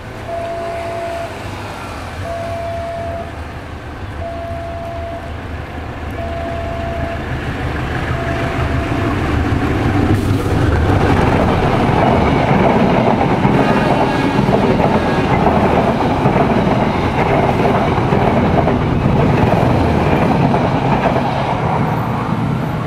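Level-crossing warning signal sounding a steady tone about once every two seconds, each about a second long. From about ten seconds in, a passenger train passes close by: a loud, steady rumble of wheels and coaches on the rails that fades near the end.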